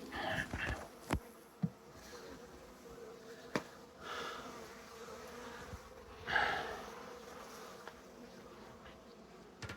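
Many honeybees buzzing in a steady hum around a colony being cut out of a wall. A few sharp clicks and three short rustling noises come over the buzzing.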